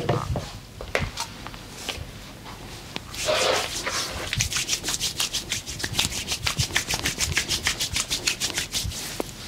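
Massage hand strokes: fast, even rubbing strokes on skin or clothing, about six a second, starting about three seconds in after a few soft scattered taps.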